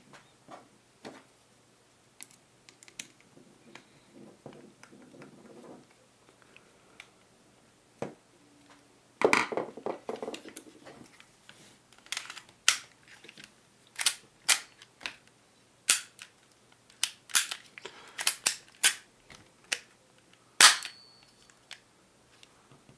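Sharp plastic-and-metal clicks and snaps from an Umarex Walther PPK/S spring airsoft pistol being handled and fitted back together, at irregular intervals. They are faint and sparse at first, then come thick and loud from about halfway in, with the loudest snap near the end.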